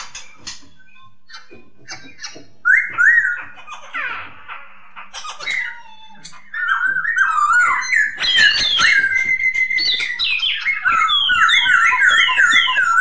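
Poksay (laughingthrush) singing loud, clear whistled phrases that slide up and down. Short phrases come first, then about halfway through the song becomes continuous and ends in a run of quickly repeated down-slurred notes.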